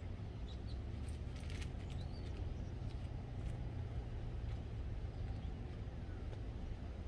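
Steady low outdoor rumble, with a few faint high chirps and light clicks about one to three seconds in.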